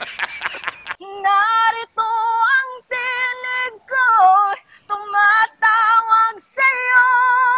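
A woman singing a Tagalog love ballad unaccompanied: phrase after phrase of held notes with vibrato, with short breaks for breath between them.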